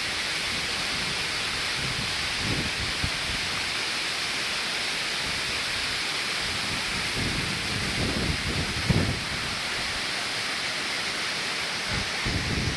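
Gega waterfall's water pouring down in a steady, even rush, with a few low rumbles of wind on the microphone.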